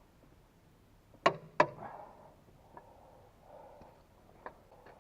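Two sharp knocks of hand tools against steel, about a third of a second apart, then a few faint ticks, while working on the bolts that hold the crane base of a Valmet 911.3 forest machine.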